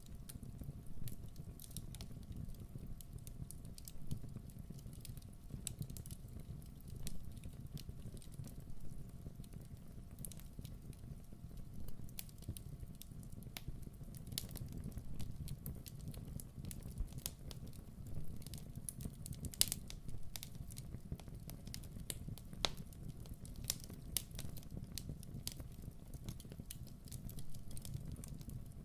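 Fire burning in a fireplace: a low steady rush with scattered sharp crackles and pops at irregular intervals, one louder pop about two-thirds of the way through.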